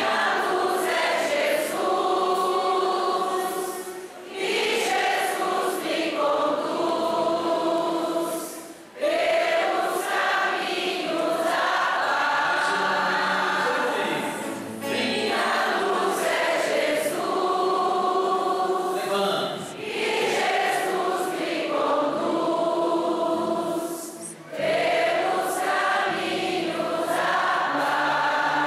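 A congregation singing a hymn together, many voices in unison, in sung lines broken by short breaths about every five seconds.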